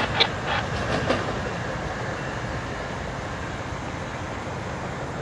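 MARC commuter train rolling past, its wheels clicking over rail joints a few times early on over a steady rumble that slowly fades.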